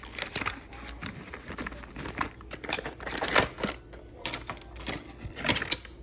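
Packaging being handled and opened: irregular clicks, taps and rustles, with a louder rustling flurry about three and a half seconds in.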